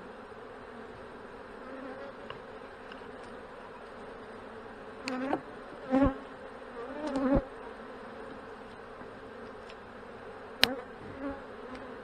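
Honey bees humming steadily over an open hive, with a few knocks and scrapes from a hive tool prying frames apart around the middle and a sharp click near the end as a frame is freed.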